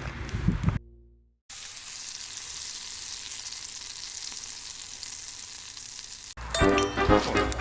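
Meat sizzling steadily in a frying pan for about five seconds. Background music cuts off in the first second and comes back near the end.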